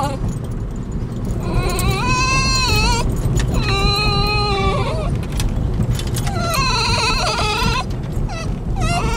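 Basenji dogs whining with excitement, three long high-pitched wavering cries about a second and a half each, the middle one lower, with short yelps around them, over the steady low rumble of a car.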